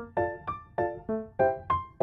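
Background music: a light keyboard melody of short notes that each die away quickly, about three notes a second.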